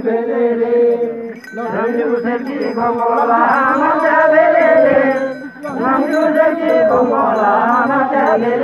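A group of voices singing a Tamang mhane dance song together, a chant-like melody in long, drawn-out syllables. There are short breaks between phrases about a second and a half in and again past five seconds.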